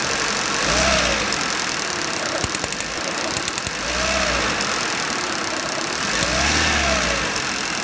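Suzuki Eeco engine running and revved three times, each rev rising and falling back to idle. It has a slight misfire caused by a bad ignition coil that is sparking against the body.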